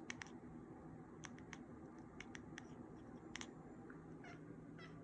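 Domestic cat chattering at a bird: faint, quick clicks in small clusters of two or three, then a couple of short, soft chirps near the end.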